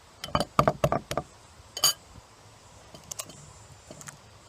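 A raw egg being tapped and cracked against a bowl: a quick run of sharp knocks in the first second or so, then a single ringing clink of the bowl about two seconds in, and a few lighter clicks after.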